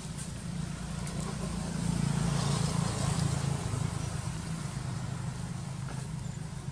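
A motor vehicle passing by: a low engine hum under a rush of noise that swells about two seconds in and then fades.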